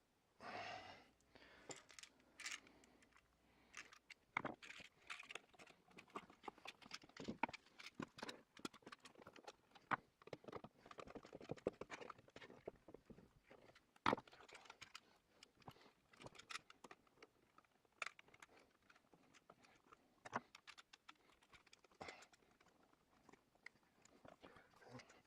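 Faint, irregular small clicks, crackles and rustling of hands working electrical wiring in a wall switch box, connecting the wires to a new dimmer switch. A sharper click stands out about halfway through.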